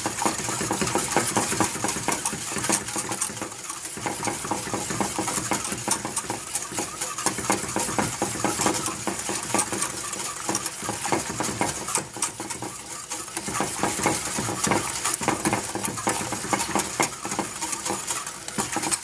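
Wire whisk stirring milk in a stainless steel saucepan: rapid, continuous scraping and clinking of the wires against the pan, dissolving yogurt starter into the warm milk. The whisking eases briefly about twelve seconds in.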